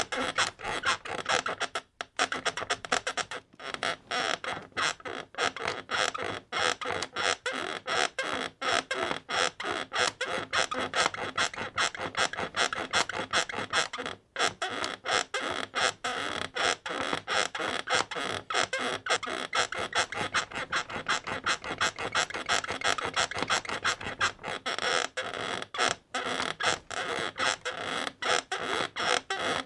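Bed creaking and squeaking in a rapid, unbroken run of short creaks, several a second, with a couple of brief pauses.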